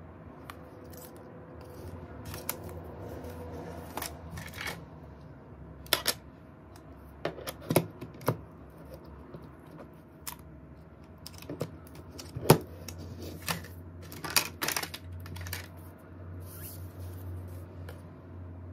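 Hands handling a phone and plastic screen-protector kit parts on a table: scattered sharp clicks and taps of plastic and glass with light rustling. The loudest click comes about halfway through.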